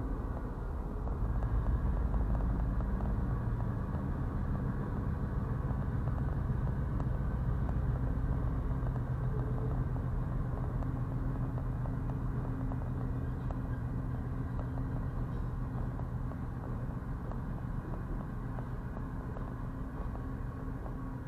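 Freight train rolling through a grade crossing, heard from inside a stopped car as a steady low rumble that slowly fades toward the end.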